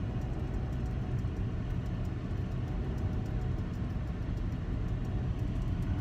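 A car driving along at a steady pace: a constant low rumble of road and engine noise with no sudden changes.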